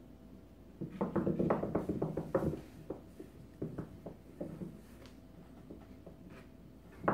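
Screwdriver with a plastic handle clattering and rolling on a stone countertop as a kitten paws at it. There is a quick run of knocks in the first half, then a few lighter taps.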